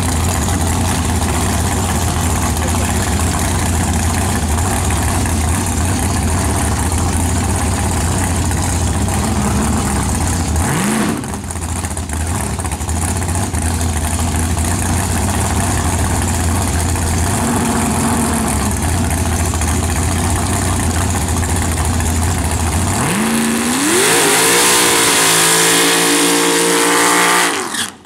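Nitrous drag-race Ford Thunderbird's engine idling loud and lumpy, with a short rev blip about eleven seconds in. Near the end the revs climb and it runs at full throttle, very loud, then cuts off suddenly as the nitrous backfires.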